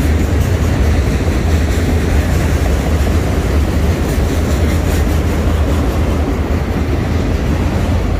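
Freight train of autorack cars rolling past: a steady, loud rumble of steel wheels on rail.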